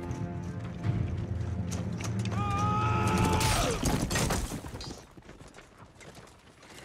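Metal clanking and rattling of armoured soldiers over a low rumble, with a long held cry about two seconds in that drops in pitch as it ends. It turns quieter about five seconds in.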